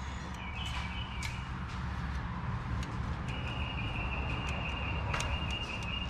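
Steady low background hum, with a thin, high, steady tone coming in about three seconds in and a faint tick near the end.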